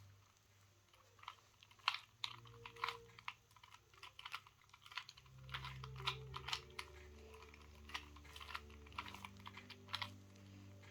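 Rubik's cube being turned quickly, its plastic layers clicking and snapping in rapid, irregular runs of several clicks a second.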